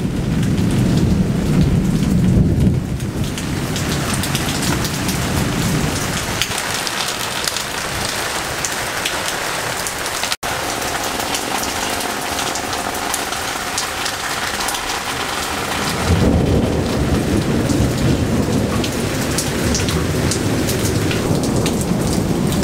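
Heavy rain pouring steadily onto leaves and paving in a summer thunderstorm, with a low rumble of thunder over the first few seconds and again from about two-thirds of the way through.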